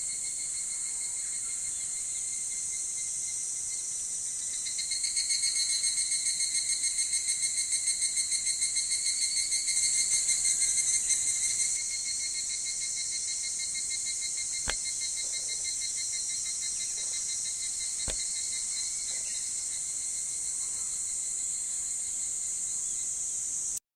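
Higurashi cicadas (Tanna japonensis) calling in a steady, high chorus. About five seconds in, one nearer cicada's rapidly pulsing call swells louder for some seven seconds, then drops back into the chorus. Two faint clicks come later, and the sound cuts off just before the end.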